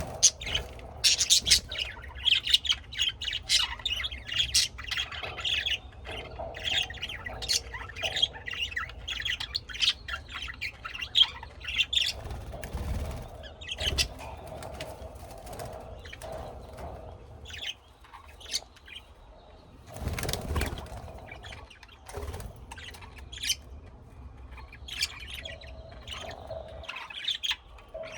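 Small birds chirping and twittering in quick, dense runs of short high calls, thinning out after the middle. A few short rustling bursts come about halfway through and again a little later.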